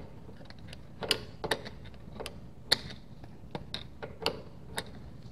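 Drum brake shoe adjuster on a 1964 VW Beetle clicking as it is turned in with a tool, tightening the shoes a little further toward the drum: about a dozen sharp, irregular clicks.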